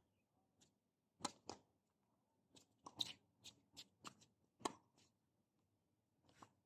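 Faint, sharp knocks of tennis on a hard court, a dozen or so clustered in the middle. The loudest, about four and a half seconds in, is the racket striking the ball on the serve.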